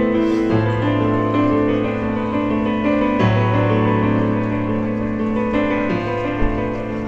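Piano playing slow, held chords that change every second or two.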